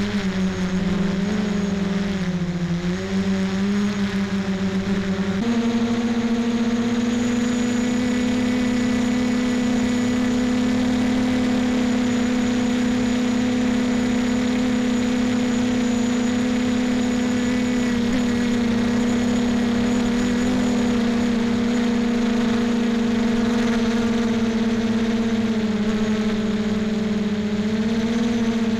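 Onboard sound of a small drone's motors and propellers: a steady hum-and-whine whose pitch steps up about five seconds in and then holds, dipping slightly and rising again near the end.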